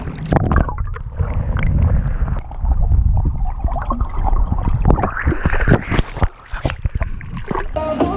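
Pool water sloshing and splashing around an action camera at the surface, going muffled and gurgling with many sharp knocks and bubbles while the camera is underwater. Music starts near the end.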